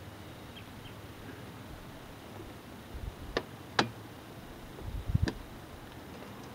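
Hand tools being handled against plastic shed siding: two sharp clicks about halfway through and a few dull knocks a little later.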